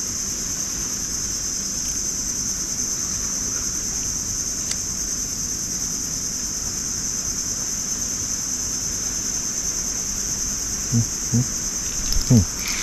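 Steady, high-pitched drone of an insect chorus that carries on without a break.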